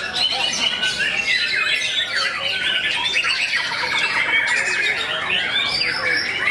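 Several white-rumped shamas singing at once: a dense, unbroken tangle of quick overlapping whistles and chirping notes.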